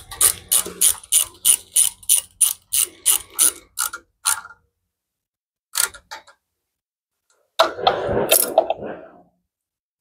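Hand socket ratchet on a long extension being worked back and forth, giving a steady run of ratcheting clicks, about three a second, for the first four seconds. One more click comes near six seconds, then a short, louder metallic clatter.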